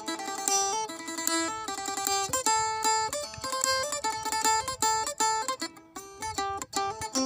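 Acoustic-electric phin, the Thai Isan plucked lute, played live: a quick melody of short plucked notes picked in fast runs.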